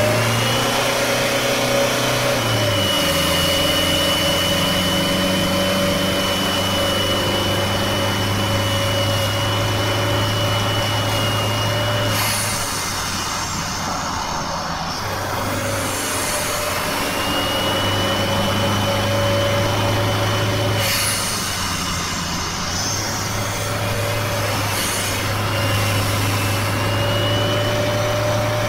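Toyota 2KD turbodiesel engine and tyre noise heard from inside the cabin at highway speed, a steady drone with a thin high whine over it. The drone and whine ease off briefly twice, a little before halfway and about two-thirds of the way in, then come back.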